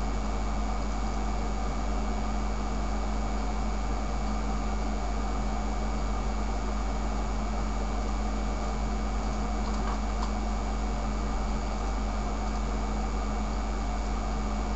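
Steady low hum with an even hiss and a few constant tones, unchanging throughout, with a faint click or two about ten seconds in.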